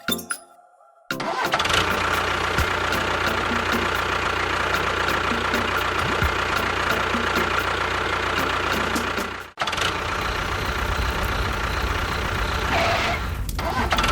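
A motor starts abruptly about a second in and runs steadily with a fast, regular ticking. It cuts out for an instant after about nine and a half seconds and carries on.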